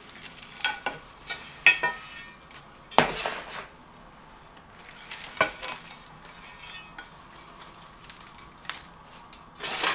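Peat-based potting soil being added to a planter around a ficus's root ball: irregular short scrapes and pours, with a quieter stretch in the second half.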